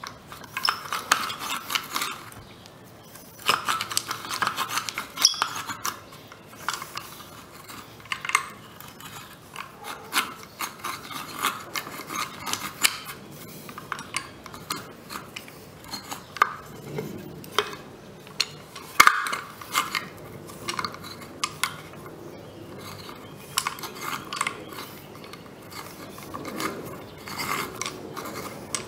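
Hand-cranked eggbeater drill boring through a wooden bar with a larger bit: irregular clicking from the gears and rasping of the bit in the wood, with a few sharper knocks, the loudest about two-thirds of the way through.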